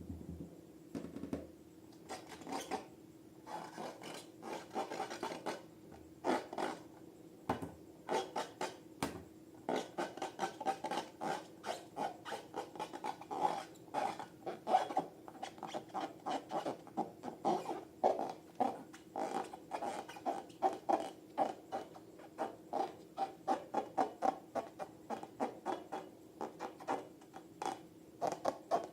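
Slime being worked by hand, stretched and squeezed in a rhythmic run of short sticky, rasping squelches at about two to three a second. The strokes come closer together from about ten seconds in, over a faint steady low hum.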